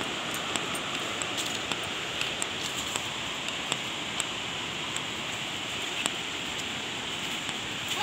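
Steady rushing of a waterfall and its river, with faint scattered clicks of footsteps on a rocky path.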